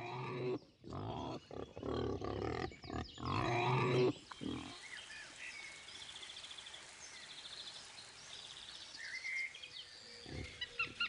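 Wild boar grunting, a run of loud grunts over the first four seconds or so, after which it goes much quieter.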